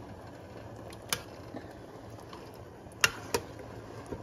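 A spoon knocking against the side of an enamel pot of chili as it is stirred: four sharp clicks, the loudest a quick pair about three seconds in, over a steady low hum.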